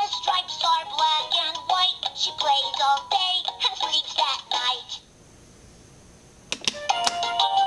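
Fisher-Price Laugh & Learn animal puzzle toy singing a short song in its recorded electronic voice. After a pause of about a second and a half, an electronic tune starts near the end.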